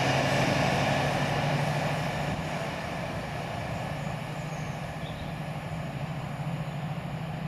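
Class 68 diesel locomotive's Caterpillar V16 engine running with a steady low drone as the train moves away. The wheel-and-rail rumble fades over the first couple of seconds, leaving the engine note.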